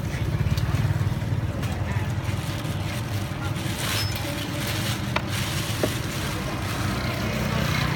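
Steady low engine rumble of nearby street traffic, with a few faint clicks and knocks over it.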